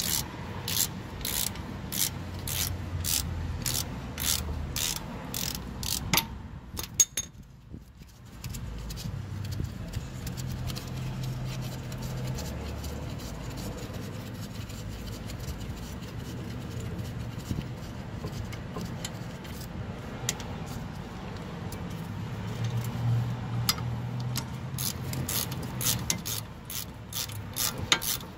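Ratchet wrench with a 17 mm socket clicking in quick, even strokes, about two or three clicks a second, as it turns out the brake caliper bracket bolts. The clicking stops for a long stretch of quieter rubbing and handling in the middle, then starts again near the end.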